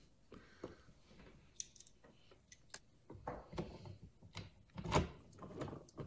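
Faint, scattered clicks and taps of a Phillips screw and screwdriver against a plastic car door trim panel while the last screw is fitted into the door-pull cup. The clicks come a little louder and closer together in the second half.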